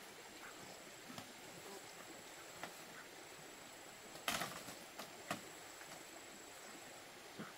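A few knocks and clacks of bamboo poles as a bamboo fence section is set in place. The sharpest knock comes a little past four seconds in, followed by two lighter ones, all over a faint steady hiss.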